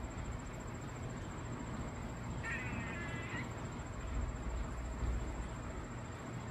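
A squirrel giving one short call about two and a half seconds in, lasting just under a second, over a steady low rumble and a thin steady high-pitched tone.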